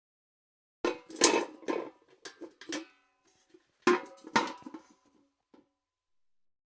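Steel bucket clanking and rattling in two bursts of knocks, about a second in and again near the four-second mark, with a metallic ring after each hit.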